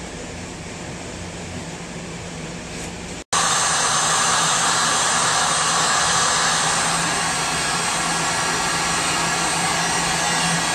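Electric heat gun's fan blowing steadily, starting abruptly about three seconds in, as it shrinks heat-shrink tubing onto a crimped copper battery-cable lug.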